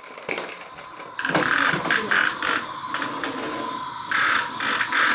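Child's toy vacuum cleaner running as it is pushed: a steady whine with a mechanical clatter that gets louder about a second in and again near the end.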